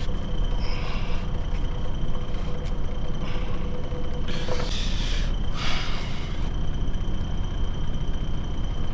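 Truck engine idling with a steady low rumble, with four short hisses over it in the first six or so seconds.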